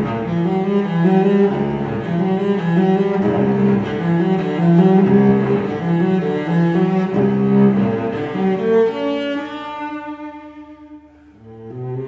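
Background music: a piece on low bowed strings, cello-like, moving in steady stepped notes. It fades down about ten to eleven seconds in and then starts up again.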